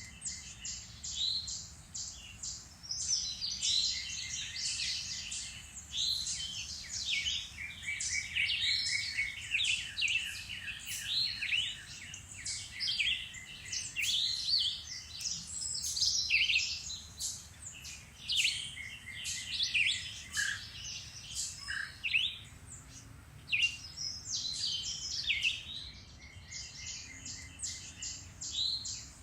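Several songbirds singing and chirping at once in woodland, overlapping trills and quick whistled notes with no pause, over a faint low background rumble.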